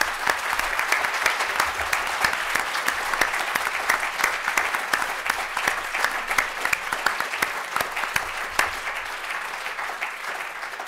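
Audience applauding: many hands clapping steadily, tailing off near the end.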